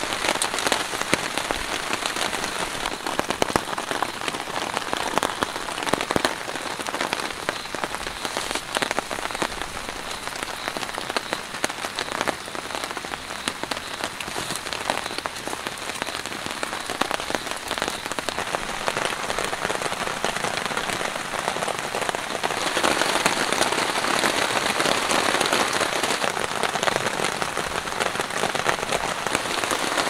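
Rain falling on a tarp shelter, a dense, even patter of drops that grows heavier about three-quarters of the way through.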